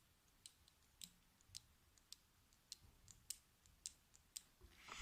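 Faint, light clicks, about a dozen at irregular intervals, as small clothespins from a children's art kit are handled and taken out.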